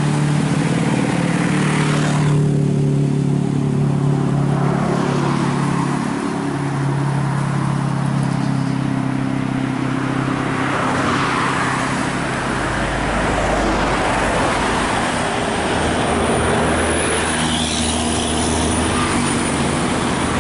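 Heavy traffic on an uphill road: an intercity bus and trucks with their diesel engines working under load, the engine pitch shifting up and down in steps, mixed with the noise of cars passing.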